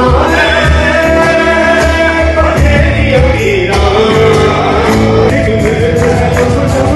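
Live band music with men singing over electric guitar and a steady beat.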